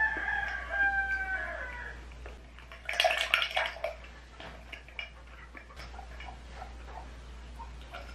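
A rooster crowing once for about two seconds in the background. About three seconds in comes a burst of glass clinks as a glass mug with a drink is lifted, followed by small mouth and swallowing clicks as she eats and drinks.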